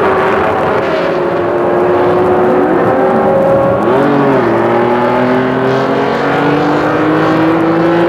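Several 1967 Formula One racing engines running at once, each at its own pitch. Around three to four seconds in, a couple of notes swoop up and down as cars rev and pass. Through the second half one note climbs steadily.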